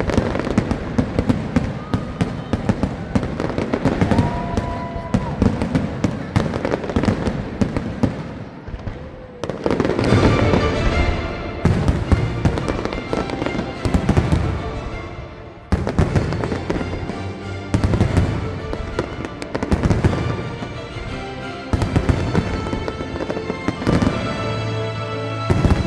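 Fireworks going off in quick succession, a dense run of bangs and crackles throughout, with music playing along with them.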